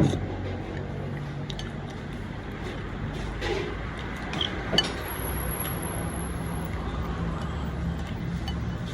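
A few light clinks of dishes and cutlery, with sharp ticks around the middle, over a steady low hum.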